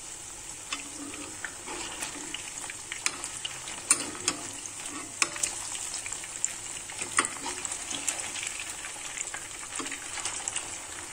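Marinated quail pieces deep-frying in hot oil in a kadai: a steady sizzle with frequent sharp pops and crackles.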